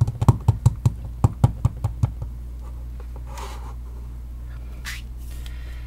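Clear acrylic stamp block with a rubber stamp tapped over and over onto a Stampin' Up! ombre ink pad to ink the stamp, about five quick knocks a second; the tapping stops about two seconds in, then faint handling rustles.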